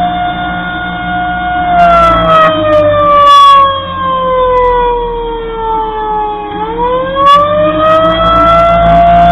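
Federal Signal 2001-130 outdoor warning siren sounding the attack signal. A steady siren tone slides down in pitch for about five seconds as the rotor slows, then rises back up over the next two or three seconds. Its loudness swells and fades as the siren head rotates.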